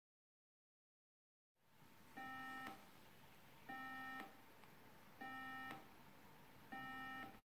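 BBC micro:bit sounding a low, buzzy beep four times, each about half a second long and about a second and a half apart.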